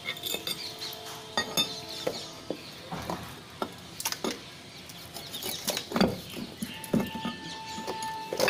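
Irregular clicks, knocks and wet handling noises of a large fish being cut up and cleaned by hand, with knife and steel-bowl clinks.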